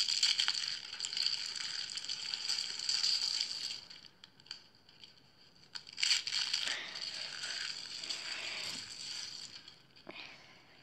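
Coiled rolls of dry soap shavings crushed in the hands, crunching and crumbling into flakes: one long crunching bout, a short pause, then a second bout about six seconds in that fades away, with a small crunch near the end.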